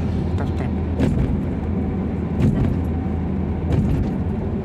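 Daihatsu Terios driving at speed on a toll road: steady low engine and tyre rumble, with a few faint ticks.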